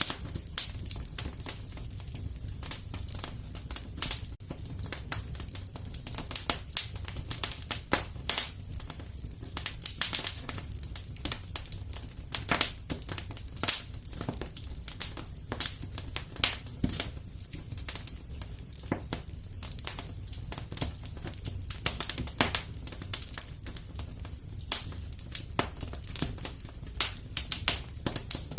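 Fireplace fire crackling: irregular sharp pops and snaps, several a second, over a steady low rumble of the flames.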